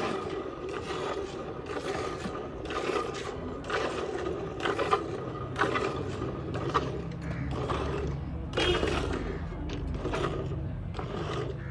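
Cow being milked by hand: jets of milk squirting into a pail in a steady rhythm of short hissing spurts, about one a second. A low steady hum comes in about halfway through.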